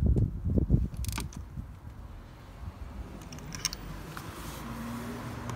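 Hand ratchet on a spark plug socket and extension clicking and knocking as a spark plug is turned, ending with a sharp click about a second in; a few faint clicks follow.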